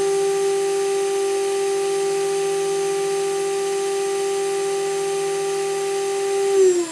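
2.2 kW water-cooled VFD spindle running unloaded at full speed, 24,000 rpm: a steady high whine with higher overtones. Near the end it is stopped and the whine falls quickly in pitch as it spins down.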